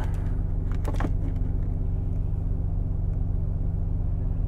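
A truck's diesel engine idling, a steady low hum heard from inside the cab. A brief paper rustle comes about a second in.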